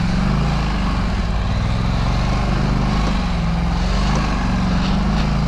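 Polaris Scrambler ATV engine running while the quad is ridden slowly over rough ground, its pitch wavering slightly as the throttle is worked unevenly.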